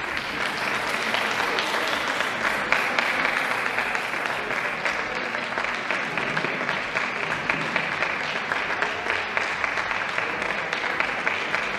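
Applause from a small group of people clapping steadily; it stops abruptly at the end.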